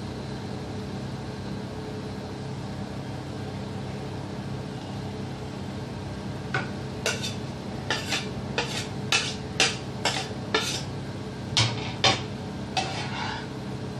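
A metal spoon knocking and scraping against a frying pan in about a dozen irregular clicks while stirring a vegetable and paneer filling. The clicks start about halfway in, over a steady low hum.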